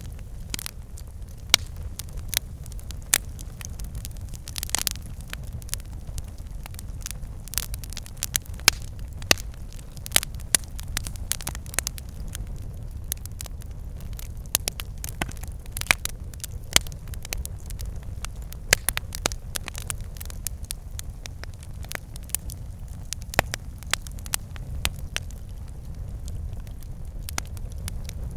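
Campfire burning, with sharp, irregular crackles and pops over a steady low rumble.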